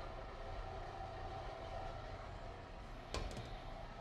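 Small electric cement mixer running with a steady low hum and hiss, its drum churning custard as liquid nitrogen is poured in to freeze it. A short clank about three seconds in.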